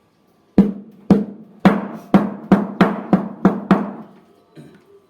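Nine hammer blows on metal, each ringing briefly, coming slightly faster as they go: a new ball bearing being driven into the drum's bearing housing of a front-load washing machine.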